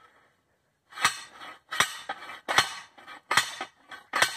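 Hand post driver slamming down on the top of a steel piezometer pipe, driving it into the ground. After about a second of quiet come five sharp metallic clangs, roughly one every 0.8 s, each ringing briefly.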